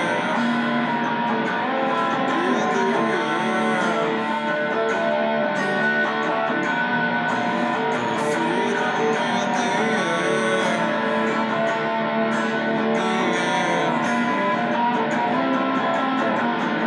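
Electric guitar strumming chords without a break, at an even loudness.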